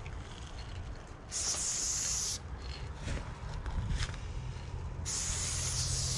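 Aerosol spray paint can hissing as it sprays black paint onto a wall, in two bursts: about a second long near the start, and a longer one from about five seconds in.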